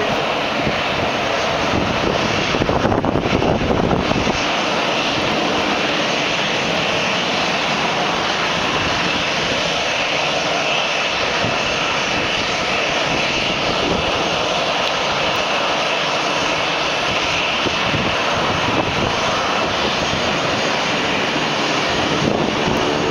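Jet engines of a Sun Country Boeing 737 running at low taxi power: a steady rush with a high whine in it as the airliner taxis toward the gate.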